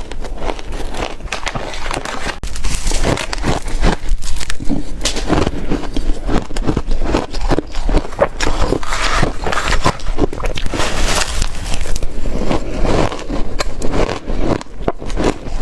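Close-miked crunching and chewing of ice, a dense, continuous crackle of bites and chews with no pauses.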